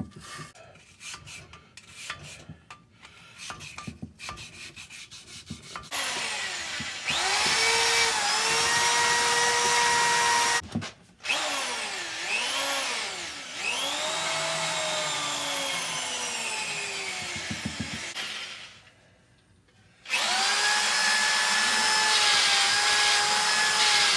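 Scraping and clicking of a small hand tool working in the holes of a cast-iron cylinder head. About six seconds in, a handheld electric power tool starts with a whine that rises as it spins up, wavers and dips as it works the holes, and stops twice before running steadily again near the end.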